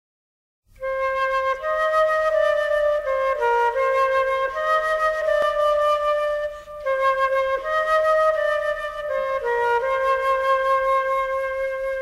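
Background music: a slow solo melody on a flute-like wind instrument that starts about a second in, one short phrase played and then repeated.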